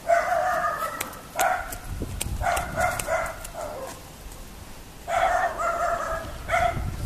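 Dog barking in irregular bouts: a run of barks at the start, a few short barks in the middle, and another run near the end.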